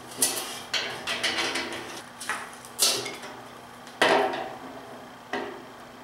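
Sheet-metal housing and fittings of a Dyna-Glo portable propane convection heater clanking and knocking as it is handled during assembly: about five separate knocks, the loudest about four seconds in.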